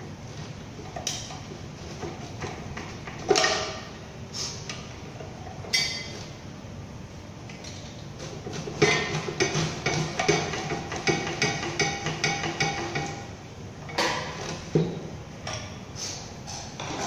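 Metal hand tools clinking and knocking on a Toyota 2TR engine as it is being dismantled: scattered sharp metallic knocks, then a fast run of clicks and clinks for several seconds in the middle.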